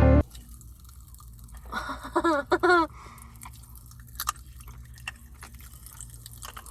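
Kool-Aid popping candy crackling in a mouth: faint scattered small pops and clicks with some chewing. A short burst of voice comes about two seconds in, and background music cuts off at the very start.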